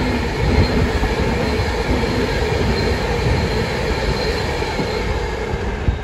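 Passenger train passing along the tracks: a loud, steady rumble of wheels on rail.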